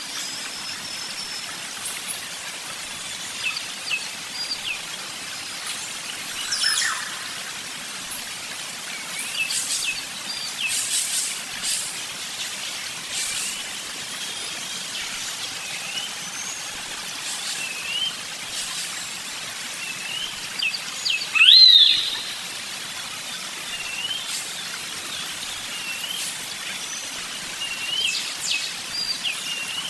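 Birds chirping, with many short high calls scattered over a steady hiss of background noise. One call about two-thirds of the way through is the loudest.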